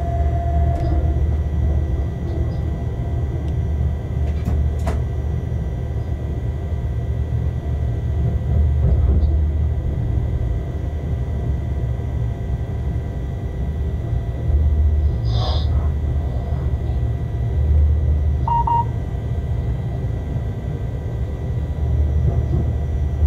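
Inside the cab of a shunting locomotive under way: a steady low rumble that swells every few seconds, with a couple of sharp knocks and a brief high tone about two-thirds of the way through.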